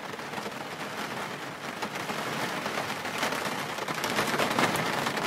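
A dense crackling noise, full of fine clicks, that slowly grows louder and then stops suddenly.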